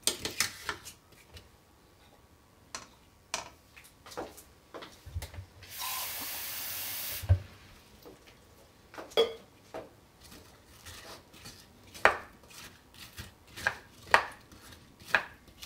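A plastic spoon stirs apple pieces and water in a stainless steel pot, giving scattered knocks and scrapes against the pot. About six seconds in, a steady rushing noise lasts for a second and a half and stops abruptly.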